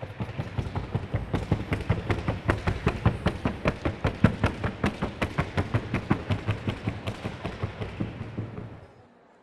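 Hooves of a Colombian criollo mare beating fast and evenly on a wooden sound board in the trocha gait, about seven or eight strikes a second. The hoofbeats stop near the end.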